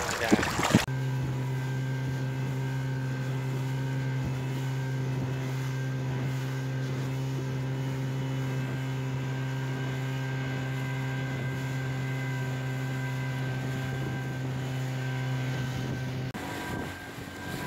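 A motor running at a constant speed, a steady unchanging hum, that cuts off about sixteen seconds in and gives way to a rougher rush of wind and water.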